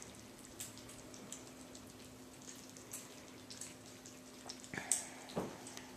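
Kittens eating wet cat food: quick, wet smacking and chewing clicks scattered throughout, over a steady low hum. A louder click and a brief falling sound come about five seconds in.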